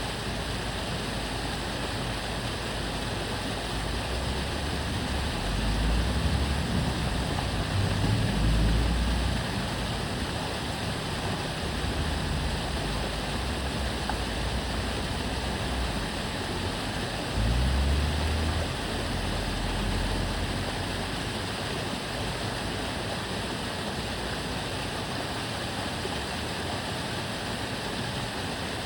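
Steady rushing of water flowing along a small city canal. Low rumbles of passing cars swell through it, most strongly twice, about a third of the way in and again past the middle.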